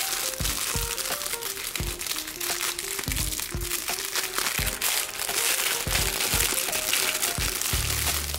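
Background music with a stepping melody, over thin plastic wrapping crinkling continuously as a replacement laptop fan is handled and unwrapped.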